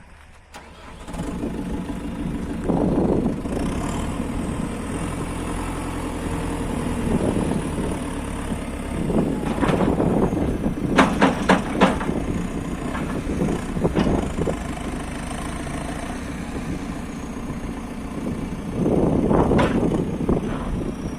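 JCB 3CX backhoe loader's diesel engine starting about a second in and then running, swelling at times under load. A few sharp knocks come about halfway through.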